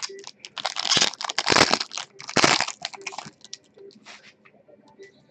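Foil wrapper of a trading-card pack being torn open and crumpled, a dense run of loud crinkling and crackling lasting about three seconds, then a few light clicks as the cards come out.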